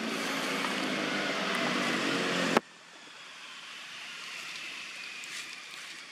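Loud steady rushing outdoor noise with a low hum under it, cut off abruptly about two and a half seconds in. After that, quieter steady background noise with faint high tones and a few small ticks.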